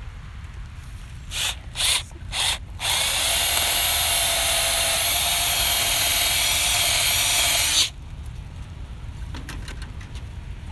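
Ridgid cordless drill spinning: three short bursts, then one steady run of about five seconds that stops sharply.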